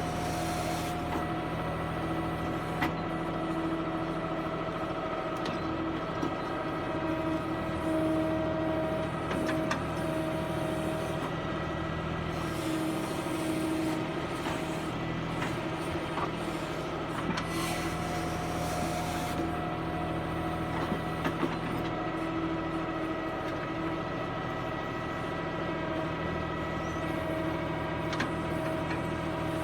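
Tractor diesel engine running steadily under load while a tractor-mounted backhoe loader digs and loads mud. Two stretches of hiss and a few short knocks sound over the engine.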